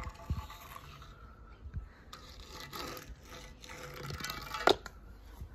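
Toy cars being handled and scraped across a surface: scattered rubbing and scraping with small knocks, and one sharp knock near the end.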